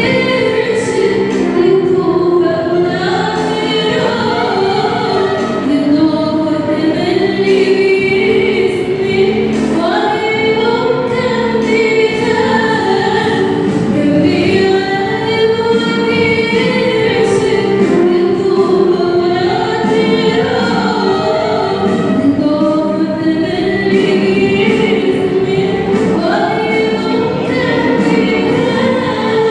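A mixed choir of women and men singing a hymn together through microphones, in long, continuous sung phrases.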